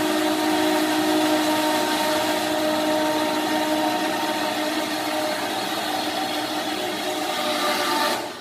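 Motor of a small 1-ton-truck crane running under load as it hoists a steel beam: a steady whirring whine with a hiss. It cuts off suddenly just before the end.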